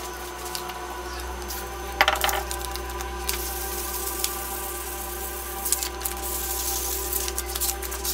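Aluminium plate being wet-sanded by hand with sandpaper lubricated with WD-40: a steady wet scratching hiss as the paper is rubbed back and forth, with a sharp knock about two seconds in and a few smaller clicks later on.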